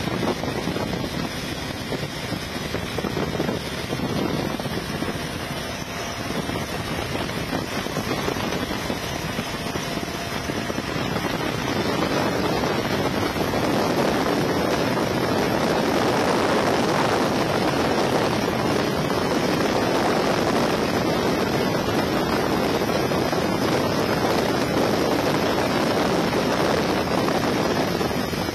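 Helicopter in flight: a steady rushing noise of the engine, rotors and air, growing louder about twelve seconds in.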